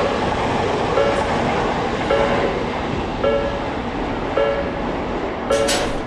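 A train running past a railroad crossing, with the crossing's warning bell ringing about once a second over the steady rumble of the train. A short burst of noise comes a little before the end.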